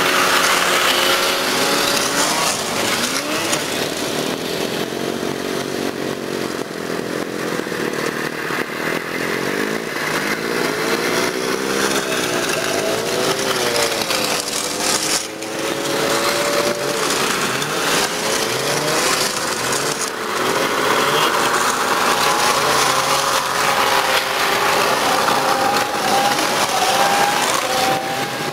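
Several vintage two-stroke snowmobile engines running as the sleds pass one after another, their pitches rising and falling and overlapping as each goes by.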